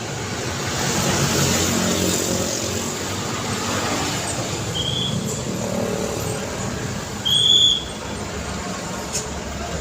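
Street traffic: motor vehicles running past in a steady rumble, one passing close about a second in. Two short high-pitched squeaks cut through, one halfway through and a louder one about three quarters in.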